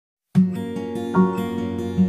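Intro music of plucked string notes over a steady low note, starting about a third of a second in.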